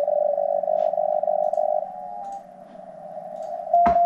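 Shortwave receiver audio from a software-defined radio tuned in the 30-metre amateur band. A chopped, buzzy signal at one pitch stops about two seconds in and the level dips while the frequency is retuned. After a sharp click just before four seconds, a clean Morse code tone starts keying on and off.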